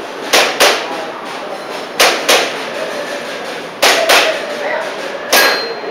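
Airsoft pistol fired in quick pairs: four double taps about a second and a half apart, each shot a sharp clack.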